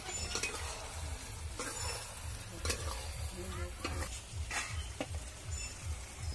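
A metal spatula scraping and stirring chicken skin curry in an iron kadai, with irregular clinks and scrapes against the pan over the sizzle of the curry frying on the fire.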